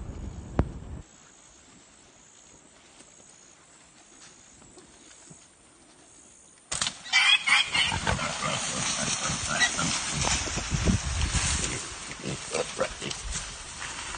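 A single sharp snap, then a quieter stretch. About seven seconds in, a wild hog suddenly breaks out squealing briefly and crashes away through dry saw palmetto brush: the reaction of a hog just hit by an arrow.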